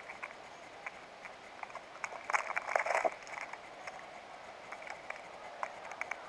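Peanut shells clicking and rattling as Steller's jays pick peanuts from a pile and shift it, close to the microphone. Scattered single clicks, with a dense run of rattling between about two and three seconds in that is the loudest.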